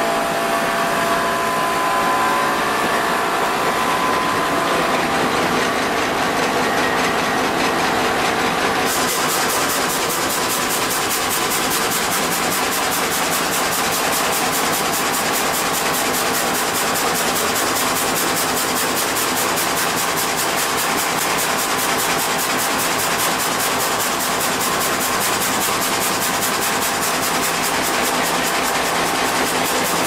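Log sawmill machine running steadily, its saws cutting through a log as spiked feed rollers drive it through. A dense, even whir of saw and motor, with a pitched whine in the first few seconds that fades.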